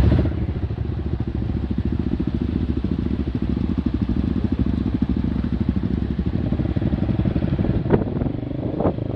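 Single-cylinder four-stroke dirt bike engine running steadily with an even, rapid pulsing, with a couple of sharp knocks near the end.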